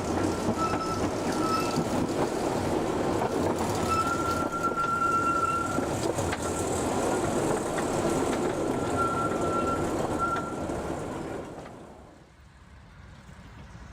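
Small minimum-gauge park train running along its track, with a thin high squeal that comes and goes and a few sharp clicks. The noise drops away sharply near the end.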